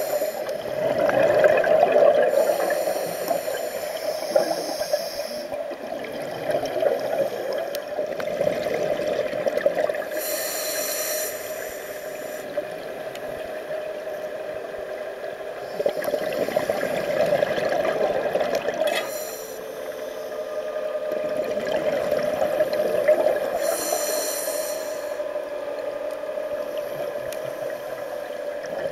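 Scuba regulator breathing heard underwater: short hissing inhalations and bubbling, gurgling exhaled air in slow cycles several seconds apart, over a steady drone.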